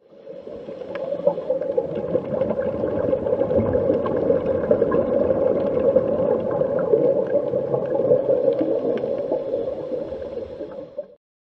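Underwater ocean sound effect: a dense, steady wash with a constant low hum and faint scattered clicks. It swells in over the first couple of seconds and cuts off abruptly near the end.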